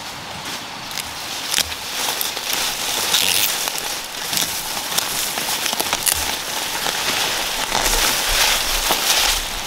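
Leafy green plants being pulled up and handled by hand: a steady rustle of leaves and stems, broken by many small sharp snaps and crackles.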